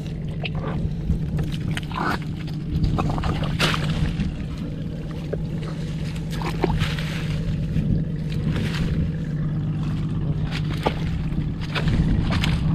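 A small engine running steadily, with water sloshing and splashing and scattered light knocks over it.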